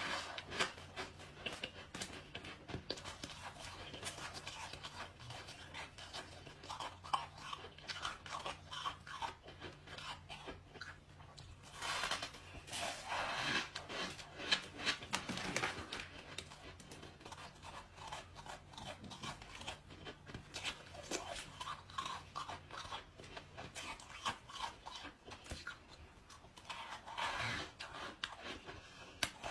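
A person biting and chewing squeaky ice close to the microphone: irregular crisp crunches and crackles, with louder runs of bites a little before the middle, and again near the end.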